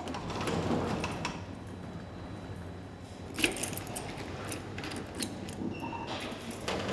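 Metallic clinking and jangling, sharpest in a cluster about three and a half seconds in, over a steady low hum, with a brief high tone near the end.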